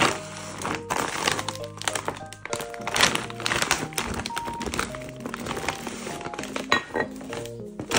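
Background music with held melodic notes, over the crinkling of a plastic bag of frozen dumplings being torn and pulled open by hand, with a few sharp thunks as it is handled.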